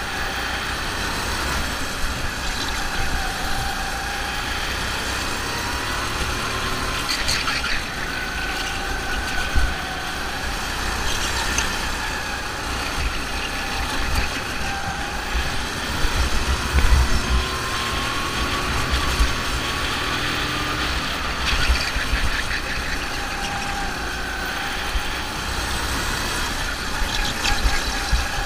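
Go-kart engine running at racing pace, its pitch rising as it accelerates and dropping off into the corners, over and over, with a steady low rumble underneath.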